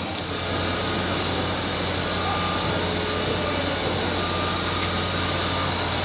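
Steady engine-like running noise with a constant low hum, a little louder from about half a second in.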